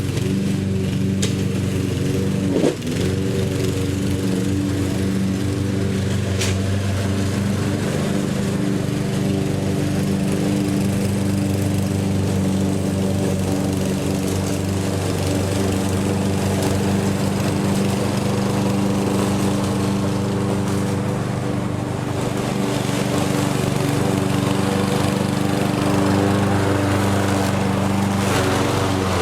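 Lawn mower engine running steadily at a constant pitch, with one short knock about three seconds in.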